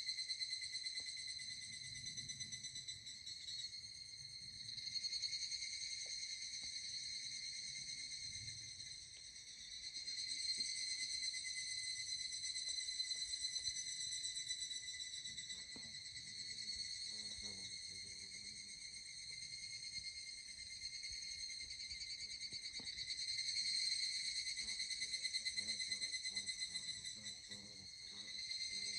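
Higurashi (evening cicada, Tanna japonensis) calling: a continuous high, ringing trill of several stacked tones that swells and fades in waves every few seconds.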